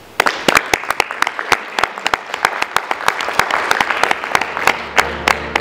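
Audience applauding: many hands clapping, breaking out suddenly a moment in and continuing steadily.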